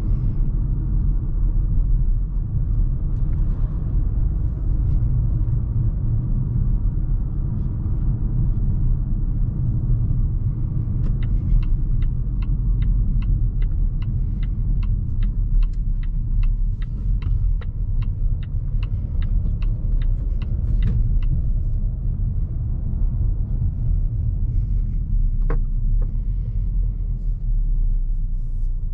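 Steady low road and engine rumble inside the cabin of a 2020 Volvo V60 T5 Cross Country with its 2.0-litre turbo four-cylinder, cruising. Partway through, a turn-signal indicator ticks at about two clicks a second for about ten seconds.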